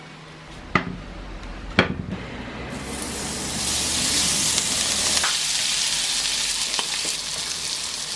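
Two sharp knocks, then about two and a half seconds in a loud sizzle starts suddenly and holds steady: sizzling tofu frying on hot metal.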